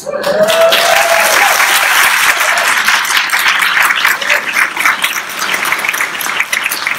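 Audience applauding, many people clapping at once; it starts suddenly and goes on steadily.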